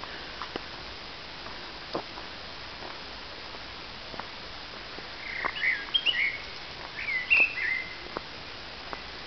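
A songbird calling in two short bursts of quick, gliding chirps, about five and seven seconds in, over a steady hiss with a few scattered light ticks.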